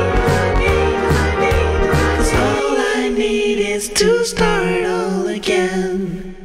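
Background pop music with a singing voice; the heavy bass drops out about two and a half seconds in, leaving the voice over lighter accompaniment, and the music fades out at the end.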